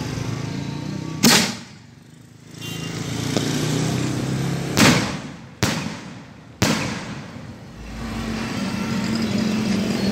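Four loud bangs from daytime aerial firework shells launched from a row of ground mortar tubes, the first about a second in and three more close together in the middle, each echoing briefly. A steady low engine hum runs underneath.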